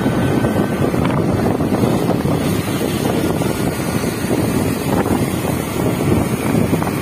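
Wind buffeting the microphone of a moving motorbike, a steady loud rumble with the bike's running and road noise under it.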